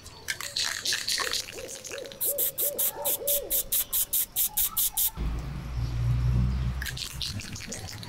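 Aerosol spray-paint can being shaken, its mixing ball rattling in quick regular strokes about three times a second, followed by a low rumble lasting about two seconds.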